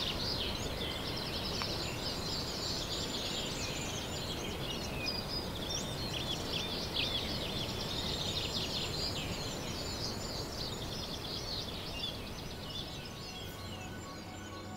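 A chorus of many small songbirds chirping and twittering at once, their calls overlapping, over a steady outdoor background hiss.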